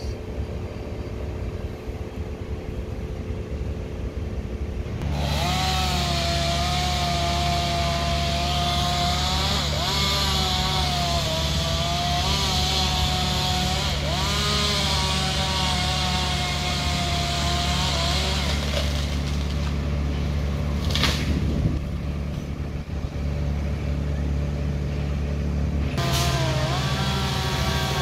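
Gas chainsaw cutting limbs, revved hard from about five seconds in until past the middle, its pitch sagging and picking up again several times as it bites into the wood, then revving again near the end. A steady low engine drone from the aerial lift truck runs underneath, and there is one sharp knock about three-quarters through.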